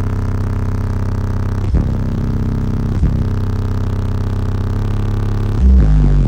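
Four 15-inch Resilient Sounds Onyx subwoofers playing music at high volume, heard inside the vehicle: a deep bass line with held notes and a louder bass hit near the end.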